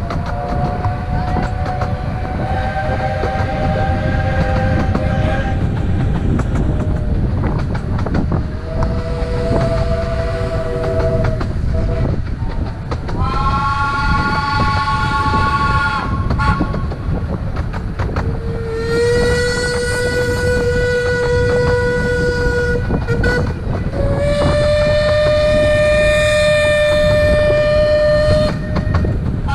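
Whistles of a 15-inch-gauge Romney, Hythe & Dymchurch Railway locomotive sounding five long blasts, some chords of several notes and others single notes, the later ones louder. Under them is the steady rumble of the train.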